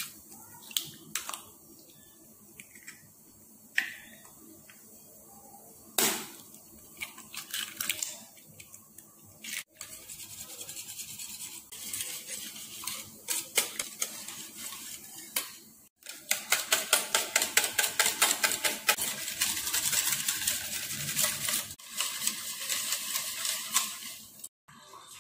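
Wire whisk beating egg into milk in a steel bowl, the wires clicking against the bowl's sides. A few scattered taps at first, then a fast, steady rattle of strokes for several seconds from about two-thirds of the way in.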